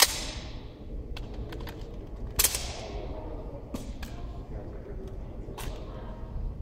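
Two sharp smacks of a wooden drill rifle being slapped and caught during rifle manipulation, one at the start and one about two and a half seconds in, each ringing out in a long echo off the hall, with lighter taps and clicks of the rifle between them.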